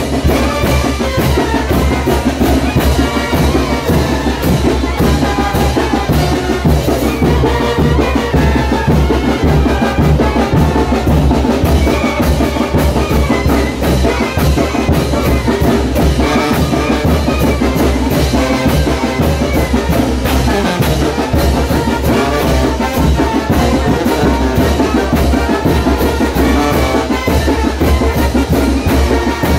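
Brass band with bass drum playing the music for a Chinelos brinco dance: horns over a steady, driving drum beat, loud and continuous.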